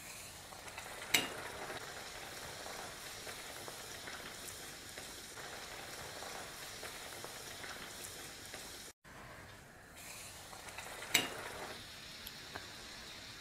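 Bhatura deep-frying in hot oil in a kadhai: a steady sizzle of bubbling oil, with two sharp knocks, about a second in and near the end.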